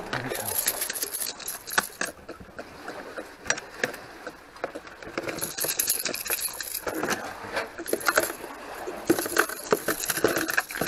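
Fishing gear being handled: a run of small metallic clinks, clicks and knocks as tools are taken from a plastic bucket and a caught fish is unhooked and put into a plastic cooler.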